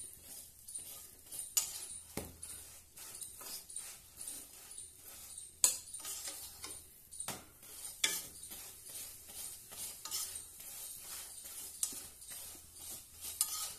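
Flat metal spatula scraping and clinking against an iron kadhai as it spreads oil over a frying paratha and lifts it, with a faint sizzle of hot oil. The sharpest clinks come about two, five and a half and eight seconds in.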